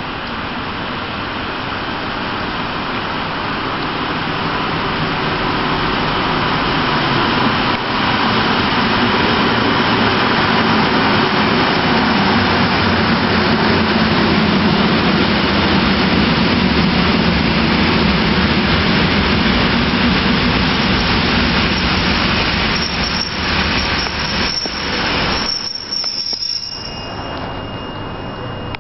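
EN57 electric multiple unit pulling into the platform: the rumble of wheels on rail and its traction motors builds as it passes close by, then eases off as it slows, with brief high squeals near the end.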